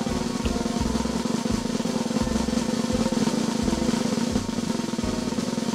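A steady, rapid snare drum roll that sounds synthesized, with low bass thuds recurring underneath.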